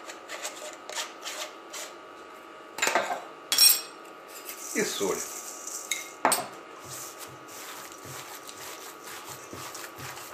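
Metal spice shakers handled over a stainless steel bowl and set down on a stone countertop: several sharp metallic clinks and knocks, the loudest about three seconds in and another about six seconds in. Near the end, soft squishing of hands starting to knead minced meat in the bowl.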